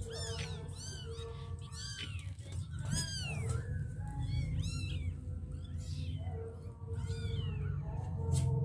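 Two-week-old kittens mewing over and over: short, high-pitched cries that rise and fall in pitch, several voices overlapping.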